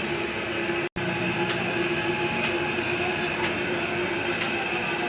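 A machine running steadily with a constant hum, and a sharp tick about once a second. The sound cuts out completely for an instant about a second in.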